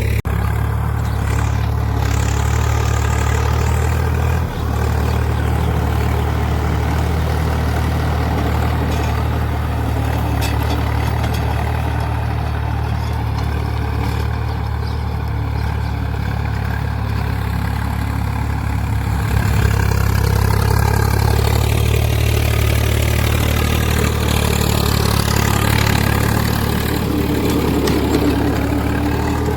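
Swaraj 855 FE tractor's three-cylinder diesel engine running steadily, pulling a plough, with a brief dip about four seconds in.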